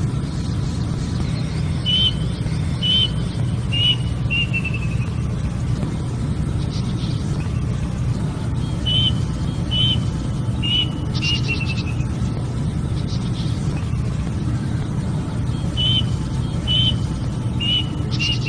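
Plaintive cuckoo calling: three phrases, each of about four clear whistled notes roughly a second apart, the last note running into a short falling trill. A steady low rumble runs underneath.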